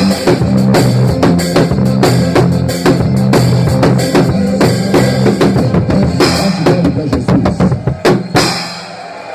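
Drum kit played along to a recorded song with a heavy bass line, bass drum and snare hits dense and steady; the playing and the song stop with a few last hits about eight seconds in.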